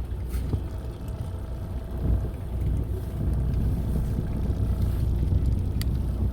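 Fishing boat's engine running with a steady low rumble and a faint steady hum above it; a light click near the end.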